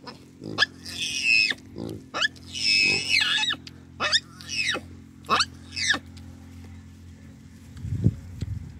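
Hamadryas baboons giving a string of about ten shrill calls, each falling steeply in pitch, over the first six seconds; two of them, about a second and three seconds in, are harsher screeches. A low thump comes near the end.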